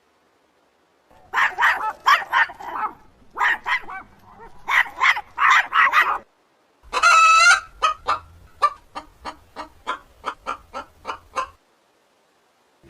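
Animal calls, fowl-like: three bursts of rapid, harsh calls, then one loud call followed by a run of short clucks at about four a second that fade out.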